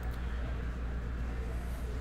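Steady low hum under faint room noise, with no distinct sounds.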